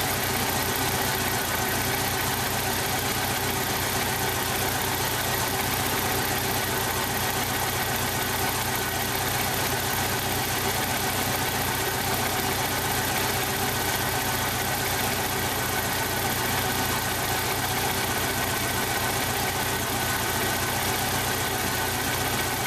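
1995 Jeep Wrangler YJ's 2.5-litre four-cylinder engine idling rough, steady throughout. The roughness comes from a blown head gasket on cylinder one, which has only about 70 psi compression.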